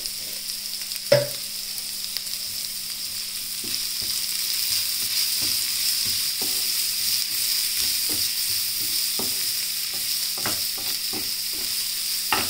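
Chopped vegetables sizzling in oil in a non-stick frying pan while a wooden spatula stirs and scrapes through them, with light knocks of the spatula on the pan and a sharper knock about a second in. The sizzle grows a little louder about four seconds in.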